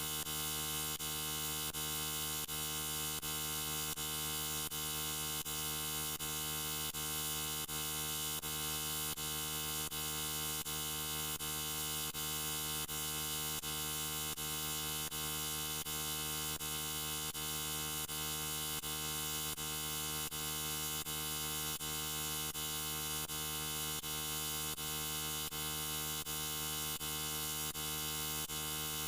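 A steady electrical buzz, like mains hum, with many overtones and no change in pitch or level. Faint ticks recur about twice a second.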